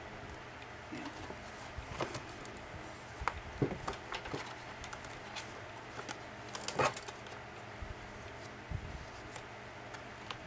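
Paper and cardstock handled against a journal's pages: scattered light rustles and taps as a paper pocket piece is held up and positioned, with a couple of sharper taps around the middle, over a faint steady hum.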